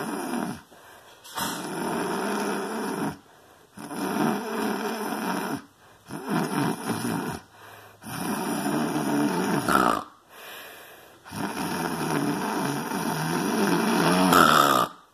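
A person snoring loudly: a run of long, drawn-out snores, each lasting one to two seconds, with short pauses between them. The last snore stretches nearly four seconds.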